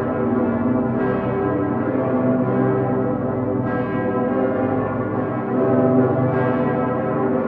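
The full festive peal of Cologne Cathedral's bells, including the great St. Peter's bell (Dicker Pitter). Many large church bells ring together in a dense, overlapping sound, with fresh strikes standing out every few seconds.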